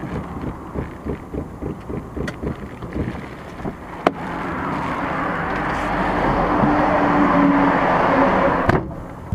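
Car interior noise heard from inside the cabin: engine and road noise with a quick pulsing of about five beats a second at first. A sharp click comes about four seconds in, then a rushing road and wind noise swells and cuts off abruptly near the end.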